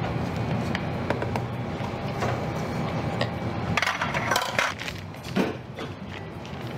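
Utensils clinking and scraping against a glass mixing bowl of whipped meringue, a quick cluster of clinks about four seconds in and a single knock shortly after.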